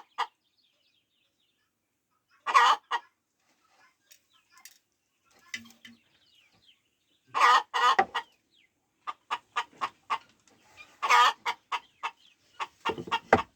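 Chickens clucking in several short bouts of quick repeated clucks, with gaps between them.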